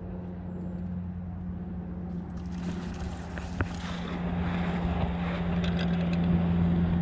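A steady low engine hum. From about halfway in, a rushing, wind-like noise rises over it, with a sharp click partway through.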